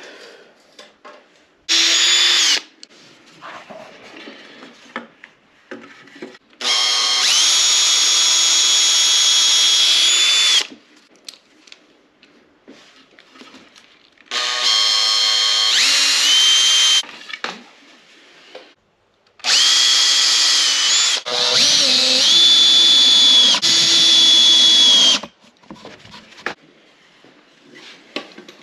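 Cordless drill running in five bursts of one to four seconds, driving into the wooden frame's joints. Each burst is a steady whine that winds up at the start, dips in pitch for a moment under load in some bursts, and winds down as the trigger is released.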